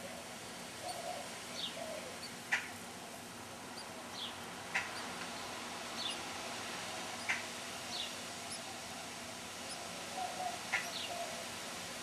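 Bewick's wrens at a nest giving short, high, falling chirps, one about every second or two, over a steady background hiss.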